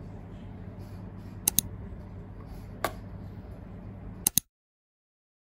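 Light sharp clicks of a Samsung Galaxy Tab S9 FE tablet being handled on its cardboard box: a quick pair, a single click, then another quick pair, over a steady low hum. The sound cuts off suddenly about four and a half seconds in.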